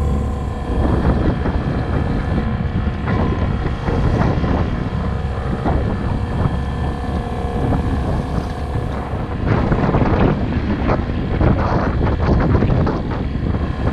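Small 9.9 hp outboard motor running steadily under heavy wind buffeting on the microphone, with gusts coming and going.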